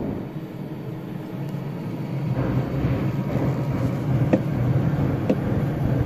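LG smart inverter refrigerator's evaporator fan running behind the freezer panel, set going by the control board's test mode; a steady whirring that grows louder from about two seconds in, with two light clicks near the end.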